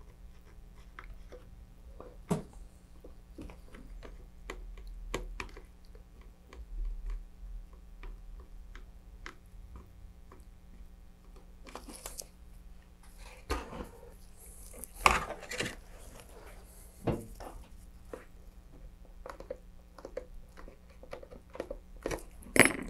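Handling noises: light clicks, taps and scrapes of a metal dental pick and gloved hands working on the thin plastic fin fairings of a model rocket, with a few louder knocks and rustles as the rocket is turned and set down on the cutting mat.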